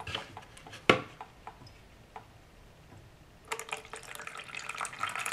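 Water poured from a cup into a small homemade model toilet bowl, a splashing pour starting about three and a half seconds in, filling the bowl so the trapway can siphon it out. A single sharp knock about a second in.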